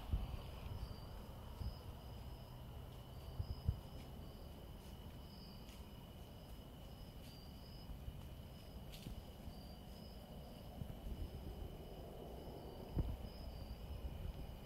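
Insects calling steadily: a constant high buzz with a repeated short chirp above it, over a low rumble and a few soft knocks.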